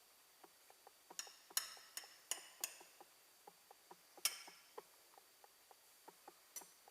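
Sharp clinks of a utensil against a dish, several in quick succession and one louder ringing clink about four seconds in, with soft small ticks between them.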